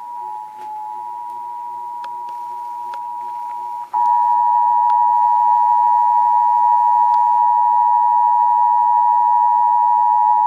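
Emergency Alert System attention signal: the 853 Hz and 960 Hz tones sounding together as one steady two-tone alert, jumping louder about four seconds in.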